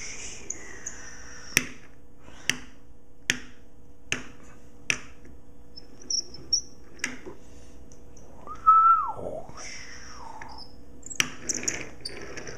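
Wooden block toy car handled on a tabletop. A run of five sharp taps comes under a second apart, then a couple more later. About two-thirds of the way in, the loudest sound is a brief high squeal that drops in pitch.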